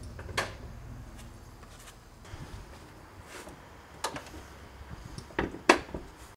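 Sharp clicks and knocks from the Porsche Boxster's convertible-top compartment lid being handled and latched by hand. There is one shortly after the start, one about four seconds in, and a quick cluster near the end that holds the loudest knock.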